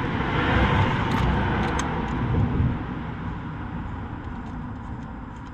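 Fiat Panda 1.2 8v petrol engine turning over with one spark plug out, blowing crud away from around the open plug hole. A steady, rumbling noise, loudest in the first few seconds and easing off gradually.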